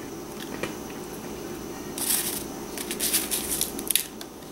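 Small plastic spoon scraping in a plastic tray and crackling through loose crunchy sugar-candy bits. The scratchy bursts come about two seconds in and again in a run of several short bursts near the end.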